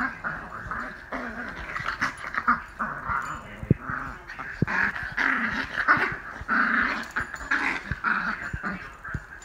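Two small dogs play-fighting, growling in short uneven bouts as they wrestle.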